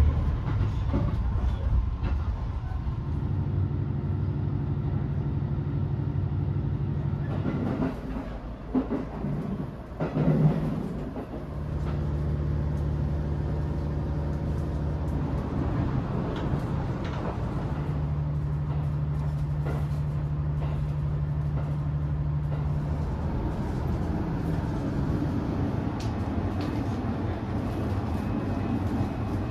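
Passenger train running, heard from inside a carriage: a steady low drone with a brief disturbance about eight to eleven seconds in.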